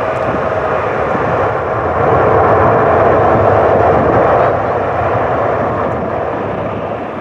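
Twin-engine jet airliner's engines at takeoff thrust as it accelerates away down the runway: a loud, steady rushing noise that swells about two seconds in and eases off after about four and a half seconds.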